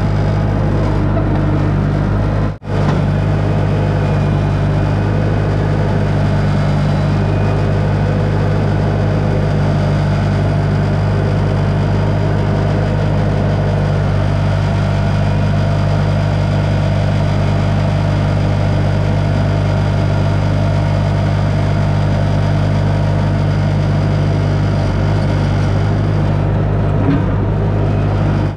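Bobcat skid steer engine idling steadily, with an even low drone. It cuts out for a moment about two and a half seconds in.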